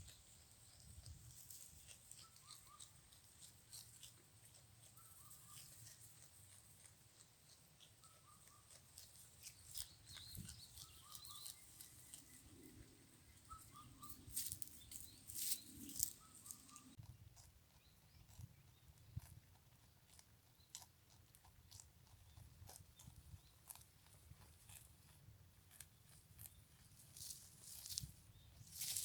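A goat tearing at and chewing cut grass: faint, irregular crackles of stems being pulled and crunched, with louder bursts about halfway through and near the end.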